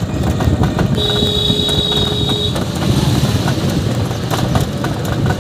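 Auto-rickshaw rattling and rumbling along a rough road, with constant small knocks from the body. A steady high-pitched tone sounds about a second in and lasts about a second and a half.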